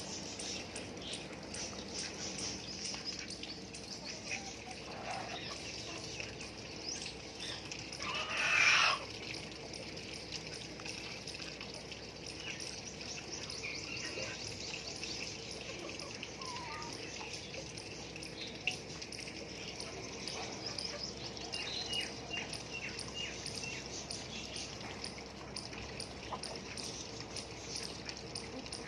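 Birds calling in a backyard flock over a steady hiss of light rain, with scattered small chirps and one loud squawk about eight seconds in.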